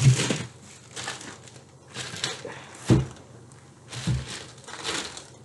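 Plastic grocery bag and a plastic bag of apples crinkling and rustling in short bursts as they are handled, with a dull thump about three seconds in and a softer one about a second later.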